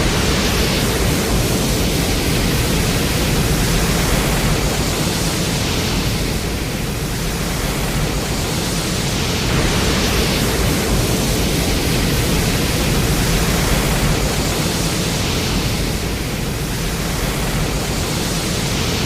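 Loud, dense, noise-like rush from a made-up kaiju roar sound effect, spread evenly from deep rumble to hiss and swelling and easing every few seconds.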